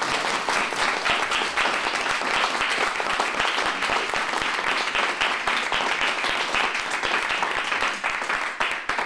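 Audience applauding: a sustained round of clapping from a roomful of people, beginning to die down near the end.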